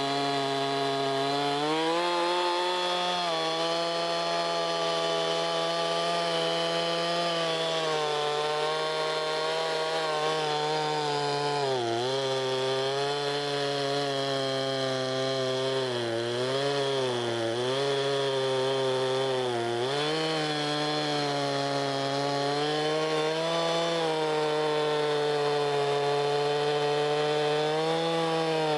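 Stihl MS311 two-stroke chainsaw running at high revs while cutting through a white oak log. Its pitch sags and recovers several times in the middle as the chain loads up in the cut.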